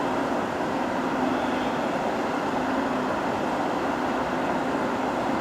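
Freight train running through a station without stopping: a steady rumble of wheels on rail, with a steady low hum running underneath.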